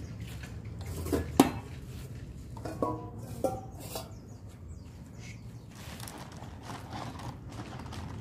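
Metal dog food bowls clanking and ringing: one loud clank about a second and a half in, then two more ringing clanks a second or two later, over a low steady background.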